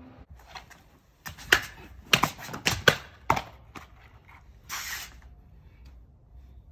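Japanese sword cutting through a rolled tatami-omote target: a quick run of sharp swishes and slicing impacts over about two and a half seconds, with cut pieces of the mat dropping onto concrete. A short hiss follows a second or so later.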